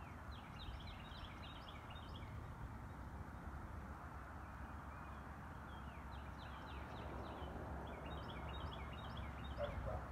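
Small birds twittering in three bursts of quick, high chirps, over a steady low background rumble.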